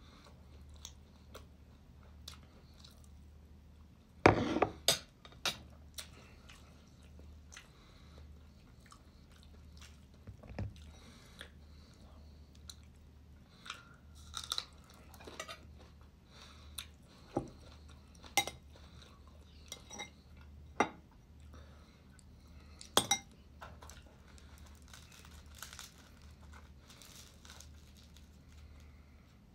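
Chewing a meal of rice and chicken, with scattered sharp clicks and knocks of a metal spoon on a ceramic bowl and plate, the loudest about 4 seconds in and again near 23 seconds. A steady low hum runs underneath.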